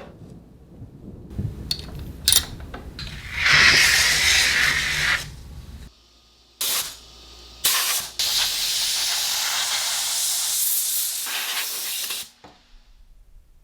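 A few sharp clicks, then bursts of hissing spray: one of about two seconds, a short one, and a long steady one of about four and a half seconds that cuts off suddenly.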